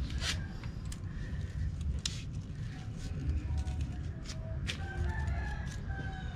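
A rooster crowing faintly, starting about halfway through, over a steady low rumble. A few sharp metal clicks come from pliers working the spring of a motorcycle side stand.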